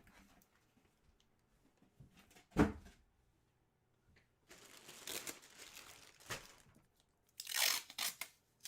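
Plastic packaging crinkling and tearing as a jersey is unwrapped. It comes in a few bursts: a short one about two and a half seconds in, a longer rustle from about four and a half seconds, and another burst near the end.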